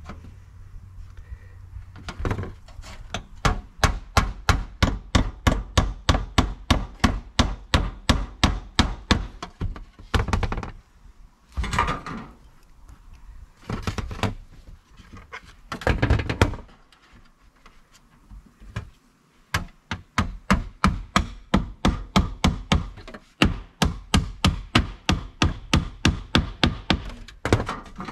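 Hammer tapping nails through sheet-metal flashing into a wooden platform: quick, even strikes, about three to four a second, in two long runs with a break of several seconds between them.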